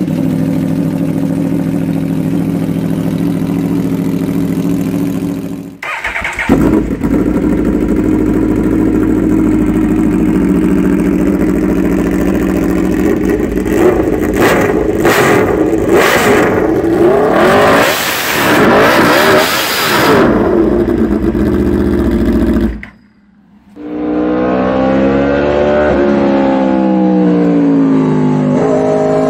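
Aprilia RSV4 65-degree V4 superbike engine: a steady run for several seconds, then revved again and again with the pitch swinging up and down, and near the end accelerating with rising pitch broken by gear shifts.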